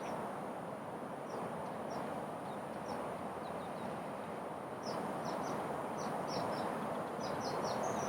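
Small birds chirping: short, high, slightly falling notes, a few at first, then quick runs of them about five seconds in and near the end, over a steady outdoor background hiss.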